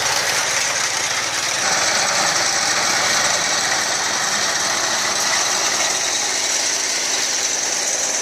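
Walk-behind soybean reaper's Honda engine running steadily as the machine cuts the crop.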